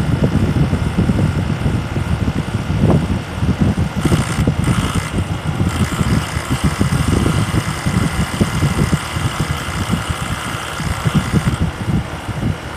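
SmartComfort heat pump running: an uneven low rumble with faint steady whining tones above it. A hiss comes in about four seconds in and stops about eight seconds later.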